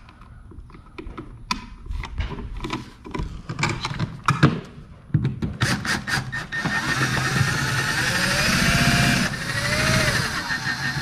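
A plastic wall plate is handled with light clicks and scrapes. Then, about halfway through, a cordless drill-driver runs in two spells, driving the plate's mounting screws, its motor whine rising in pitch as it speeds up.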